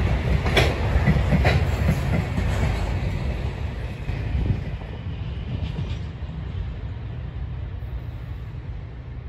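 Freight train of flat wagons rolling past, its wheels clacking over rail joints several times in the first two seconds over a low rumble. The rumble then fades away as the last wagon goes by.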